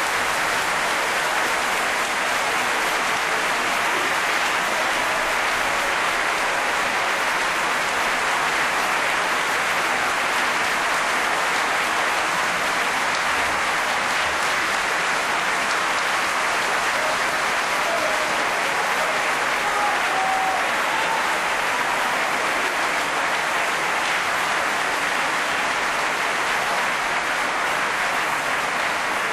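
Sustained applause from an audience: steady, dense clapping that keeps up without a break.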